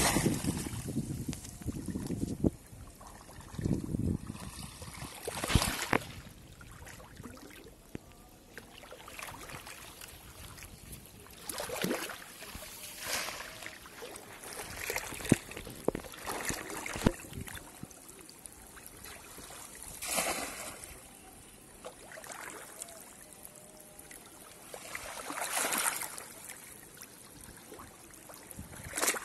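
Shallow pond water splashing and sloshing in separate bursts every few seconds as a bamboo polo fish trap is plunged in and worked through the water, with the loudest splashes near the start.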